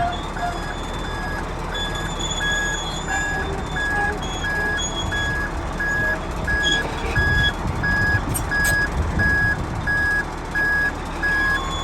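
Heavy-machinery backup alarm beeping steadily, about one and a half beeps a second, over the low rumble of a diesel engine that grows louder midway through.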